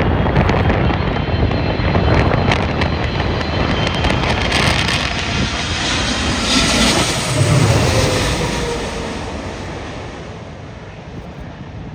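Jet airliner passing low on its landing approach: loud engine noise with a falling whine that fades over the last few seconds. Gusts of wind rumble on the microphone.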